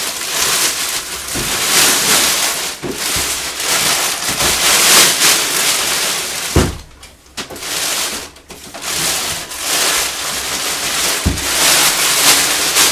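Thin polythene bag rustling and crinkling loudly as it is pulled off a printer and balled up by hand, in repeated surges with a couple of brief pauses. A few dull knocks sound in between.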